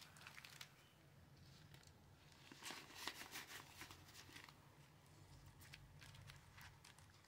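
Faint rustling and light clicks of paper cash and binder pockets being handled, a little louder about two and a half to three and a half seconds in.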